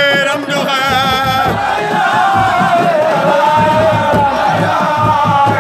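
A dense crowd chanting and singing together, with one voice holding long, wavering notes above the mass of voices.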